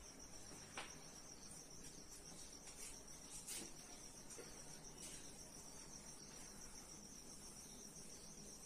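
Near silence: a faint, steady, high-pitched trill, with a few faint soft strokes of a duster wiping a whiteboard.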